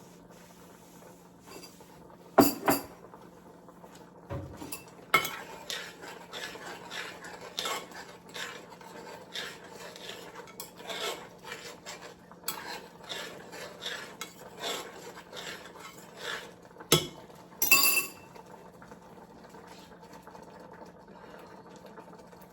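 Dishes and cutlery clinking and clattering, with a spoon stirring and knocking against a dish. There are two louder clanks, about two seconds in and near the end. A low steady hum runs underneath.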